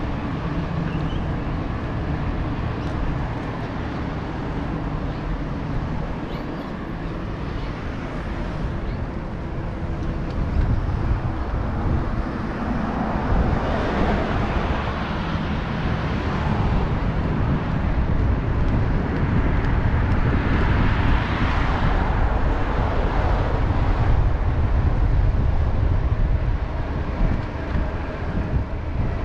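Wind buffeting the microphone while riding a bike, with road traffic around; twice near the middle a vehicle passes, its noise swelling and fading.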